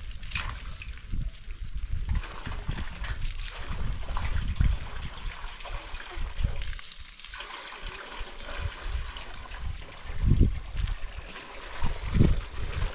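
Water trickling and splashing steadily, with irregular low thumps throughout.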